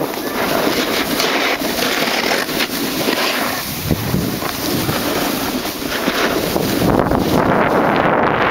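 Wind buffeting the camera microphone while moving down a ski slope, with the hiss and scrape of sliding on snow underneath. The deep buffeting gets heavier near the end.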